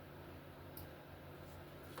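Quiet kitchen room tone with a low steady hum and a faint click a little under a second in.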